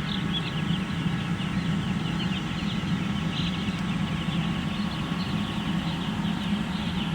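A flock of broiler chickens in their house, many birds peeping and chattering at once without a break, over a steady low hum.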